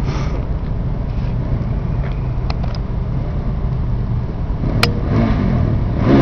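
Quad bike (ATV) engine running as it rides toward the microphone, over a steady low rumble, with a sharp click nearly five seconds in.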